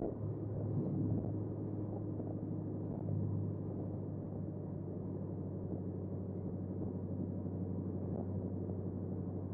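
2012 Camaro SS V8 with long-tube headers, an X-pipe cat-back exhaust and race bullet mufflers, running steadily under way and heard from inside the cabin. It swells slightly about a second in and again around three seconds, then settles into a steady drone.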